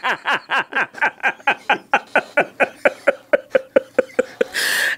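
A person laughing hard in a rapid, even run of short 'ha' pulses, about six or seven a second, ending with a breathy gasp near the end.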